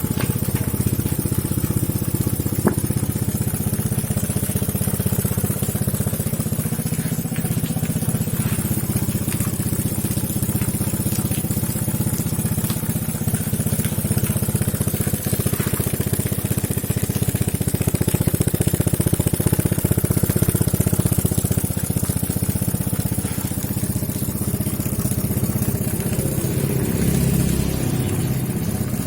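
Small homemade four-stroke engine, built from a refrigerator compressor, running steadily with a rapid, even beat.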